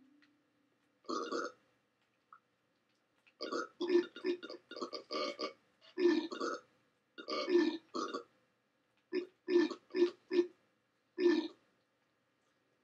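A series of loud burps, some single and some in quick runs of three or four short ones, with dead silence between the groups.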